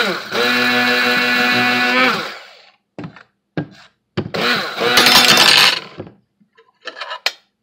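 Hand-held immersion blender pulsed twice in a stainless steel bowl of heavy whipping cream and chocolate milk powder, each burst about two seconds long. The first is a steady motor whine that drops in pitch as it stops; the second sounds busier and brighter. A few light clicks come between and after the bursts.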